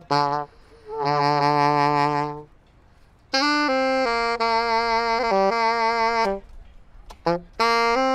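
Alto saxophone playing sustained notes in short phrases with brief pauses between them. A long note about a second in is held with vibrato.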